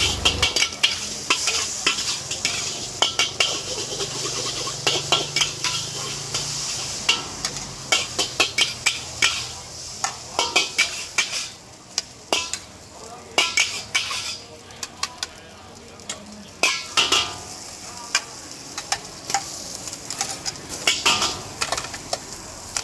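Metal spatula clattering and scraping against a wok as char koay teow is stir-fried over a charcoal fire, with oil sizzling between the strikes. The strikes come in quick clusters, and the frying goes quieter for a few seconds about halfway through while the noodles are scooped onto a plate.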